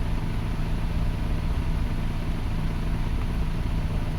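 2005 Toyota Passo's petrol engine idling steadily. The car has an intermittent stalling fault traced to erratic firing on coil number 1.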